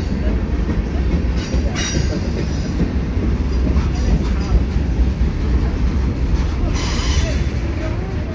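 Freight train of covered hoppers, boxcars and tank cars rolling slowly past close by: a steady low rumble of wheels on rail, with short bursts of high-pitched hissing noise about two seconds in and again about seven seconds in.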